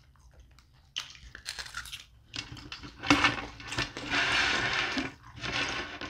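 Crisp flatbread pizza crust being torn apart by hand, crackling and crunching in several bursts that grow louder in the second half.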